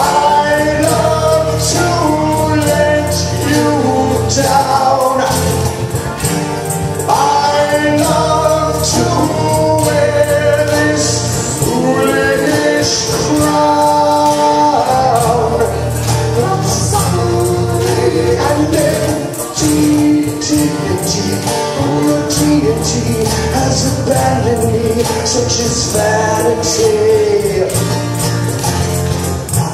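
Live acoustic rock song: acoustic guitar playing steadily with a pitched melody line carried over it, with no clear sung words.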